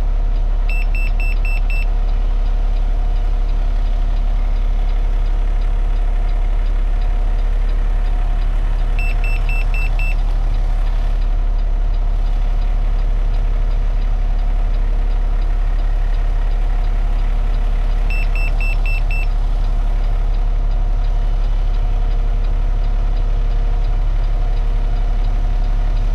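Refuse truck engine idling steadily, with three quick runs of about five short high beeps, roughly nine seconds apart, from the PreView Side Defender II blind-spot radar's in-cab alarm signalling that a person has been detected.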